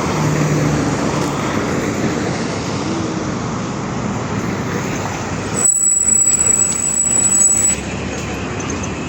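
LiAZ 5292.65 city bus in motion: engine and road noise, with the bus body creaking. Past halfway the noise grows louder and a steady high tone sounds for about two seconds.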